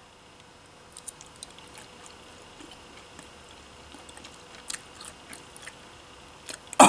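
Faint chewing of a soft, taffy-like sour candy, with small scattered mouth clicks. A voice exclaims right at the end.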